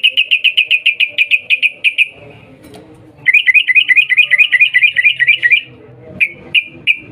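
Yellow-vented bulbul (trucukan) giving its chattering "cuk cuk" call: a quick run of sharp, evenly repeated notes for about two seconds, a pause, then a faster run of upward-sweeping notes for about two more seconds. A few single notes follow, spaced out near the end.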